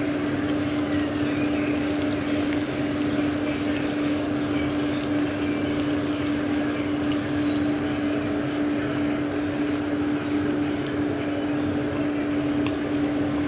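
Aubergine slices frying in hot oil, a steady sizzle with scattered light crackles, over a steady low hum.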